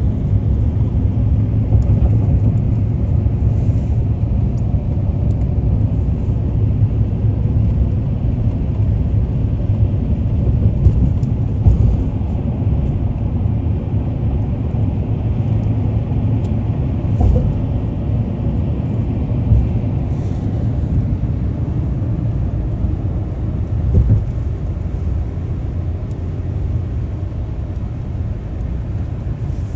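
A car driving, with a steady low rumble of road and engine noise and a few small bumps.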